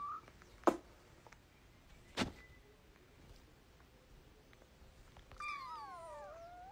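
Two sharp clicks about a second and a half apart, then, about five seconds in, a cat's long meow that falls in pitch and then holds steady.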